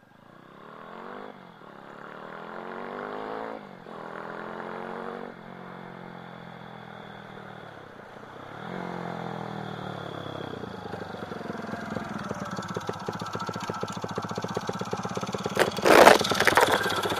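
Monkey mini-bike's small single-cylinder four-stroke engine accelerating hard towards the listener, revving up through the gears with a drop in pitch at each of four upshifts and growing steadily louder. It then holds high revs and passes close by at about 95 km/h with a loud rush near the end.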